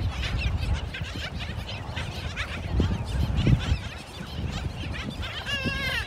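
A black skimmer colony calling: many short overlapping yaps and chirps, with one longer wavering call near the end, over a low rumble.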